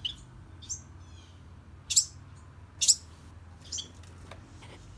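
Baby songbirds chirping: about five short, high chirps spaced roughly a second apart, the loudest two about two and three seconds in.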